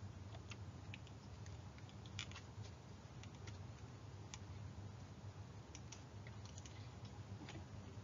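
Quiet room tone with a steady low hum and a dozen or so faint, scattered clicks.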